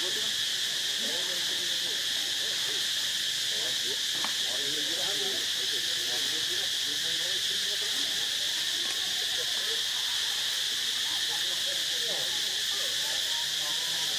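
Steady, high-pitched insect chorus droning without a break, with faint short wavering calls underneath.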